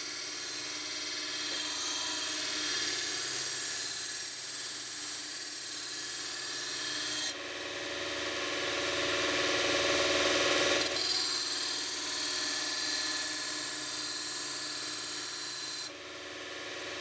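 Mini belt grinder's small electric motor running at speed while a steel kitchen knife blade is ground against its abrasive belt to sharpen it. The sound changes abruptly about seven, eleven and sixteen seconds in, and grows louder between about seven and eleven seconds.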